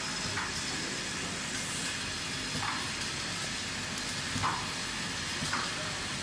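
Stick lip balm filling and capping line running: a steady machine hiss, with a few short clacks at uneven intervals.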